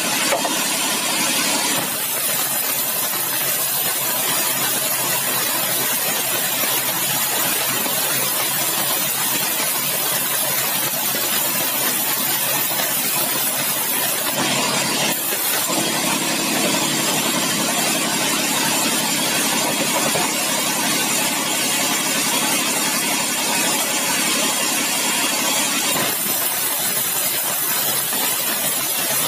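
Large sawmill band saw running and ripping a bengkirai (Shorea laevis) hardwood timber: a steady, loud mechanical noise with a strong high hiss from the blade in the wood. The sound shifts briefly about halfway through and again a few seconds before the end.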